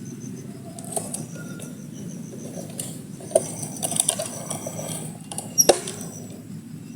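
Scattered rustling, clicks and taps, the loudest a few sharp knocks around the middle and near the end, over a steady low rumble, with faint insect buzzing in the background.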